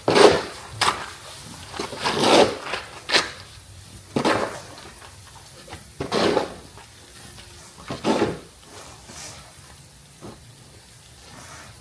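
Snow shovels scraping and pushing snow across the driveway pavement in a string of short strokes every second or two, thinning out near the end.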